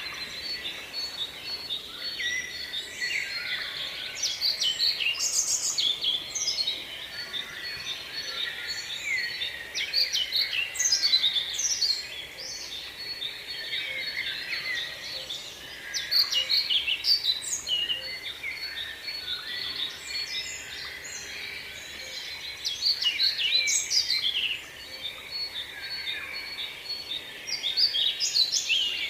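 Many small birds chirping and twittering together in a dense chatter, swelling into busier spells every few seconds.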